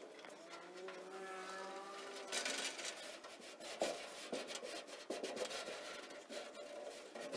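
Hands rubbing and pressing freshly glued carpet against the inside wall of a steel gun cabinet: a dry, rasping rub, with a few soft knocks partway through.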